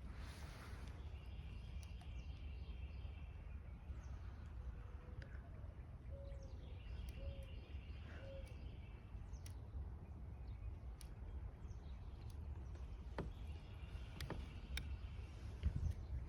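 Faint lakeside ambience: a steady low rumble with a bird singing the same short song three times, and scattered sharp clicks.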